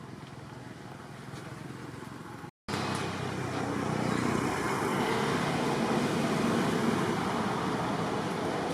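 Steady rushing noise with no clear tones. It cuts out completely for a moment about two and a half seconds in and comes back louder.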